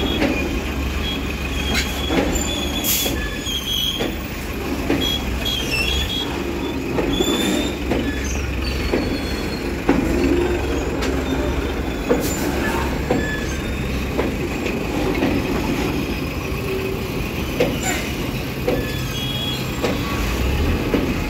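Freight train wagons rolling past close by: a steady rumble of steel wheels on the rails, with irregular sharp clacks as the wheels pass over rail joints. Short high squeals from the wheels come now and then, mostly in the first half.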